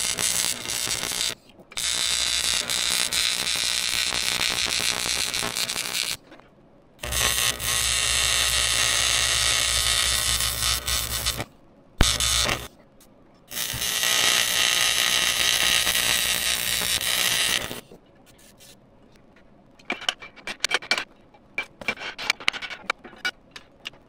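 TIG welding arc on aluminium, a steady buzzing hiss that starts and stops in several runs of a few seconds each, with short pauses between them. The arc stops for good about 18 s in, leaving only scattered light clicks and taps.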